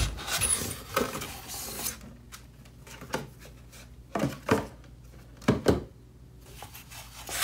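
Unboxing handling noise: cardboard packaging rustles for about two seconds, then come several soft knocks and rubs as the styrofoam packing around the microphone is handled.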